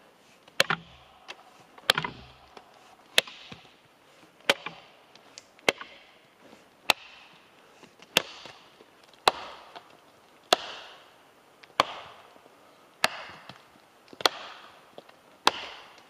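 Axe chopping into a log, carving away wood to shape it: thirteen steady, evenly spaced blows, about one every 1.2 seconds.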